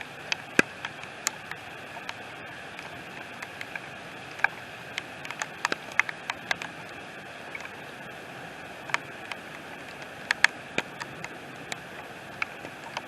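Steady rain falling, with individual raindrops landing close by as sharp, irregular ticks and taps scattered over the hiss.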